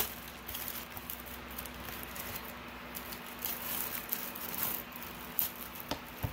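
Plastic shrink wrap being pulled off a Blu-ray case: faint, scattered crinkles of the cellophane, with a few light taps as the case is handled, more of them in the second half.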